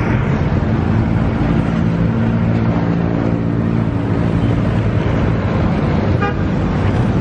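Steady road traffic noise with a low engine hum from vehicles on the adjacent road.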